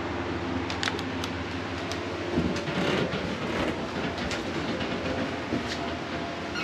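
A steady low mechanical hum, with a few light clicks and knocks scattered through it, busiest about two and a half seconds in.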